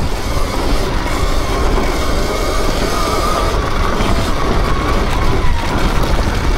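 Sur-Ron electric dirt bike riding along: the electric motor's thin whine rises slightly in pitch and then eases off, over a loud steady rush of wind and rolling noise.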